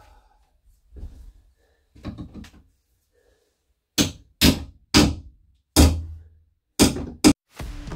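Hammer blows on a pry bar driven into wooden boat cabinetry during demolition. A few soft knocks are followed, about halfway through, by six sharp, irregularly spaced strikes.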